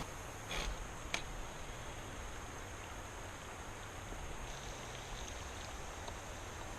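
Faint steady rush of flowing river water, with two light clicks about half a second and a second in.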